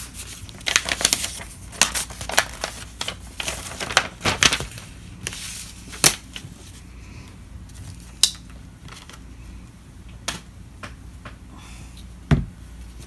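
Packaging being opened by hand: a run of sharp crackles and clicks of tape, paper or plastic wrapping. They come thick for the first few seconds, then grow sparser, with one dull knock near the end.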